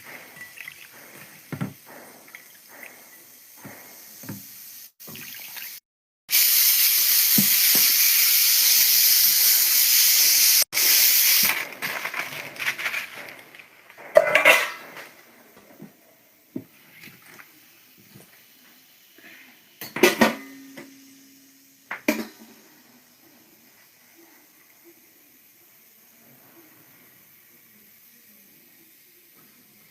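Water rushing steadily for about five seconds, starting abruptly about six seconds in, like a tap running into a sink. Then dishes clatter, with a few sharp knocks.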